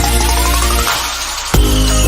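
Electronic background music with a heavy bass beat and a rising synth sweep. The bass drops out about a second in and comes back with a hit about half a second later.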